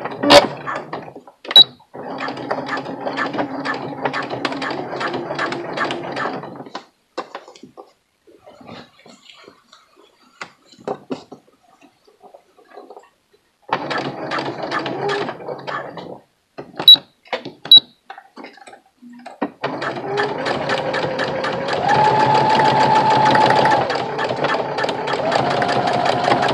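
Electric household sewing machine with a zipper foot stitching a zipper into thick pant fabric: three runs of rapid needle strokes, the first about five seconds long, the second short and the last the longest, with pauses and a few sharp clicks between them. In the last run the motor speeds up and its hum rises in pitch.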